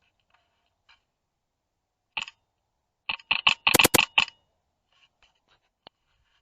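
Airsoft rifle firing: two sharp shots about two seconds in, then a fast string of about eight loud shots about a second later.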